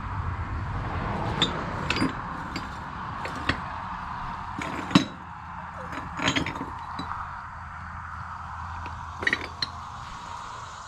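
Glass bottles clinking against one another as they are handled and sorted: about ten sharp, irregular clinks over a steady background hum.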